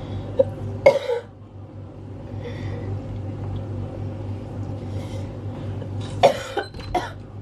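A person coughing: one hard cough about a second in, then a quick run of coughs near the end. It is a staged coughing fit, faked as coughing up blood.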